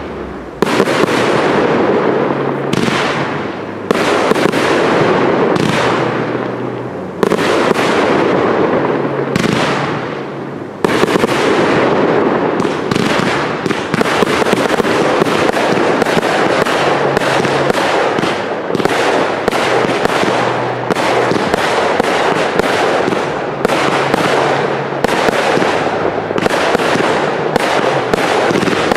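Cake fireworks firing shot after shot: sharp launch reports with bursting bangs overhead. The shots come a second or two apart at first, then in a rapid, near-continuous string from about twelve seconds on.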